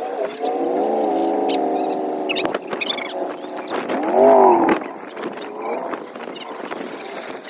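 Cattle mooing: one long call, then a shorter one that rises and falls about four seconds in, with a few sharp clanks between them.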